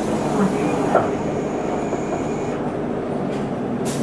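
Running noise inside an Isuzu Erga city bus under way: a steady diesel engine hum with road and body noise, a few light knocks, and a brief hiss near the end.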